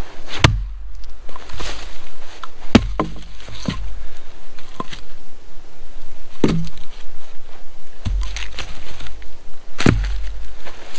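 Axe blows splitting short lengths of wood on a log: four heavy strikes spread a few seconds apart, with lighter knocks between them.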